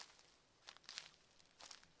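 Quiet footsteps of a person walking through a forest at an even pace, each step a short crunch, about four in two seconds.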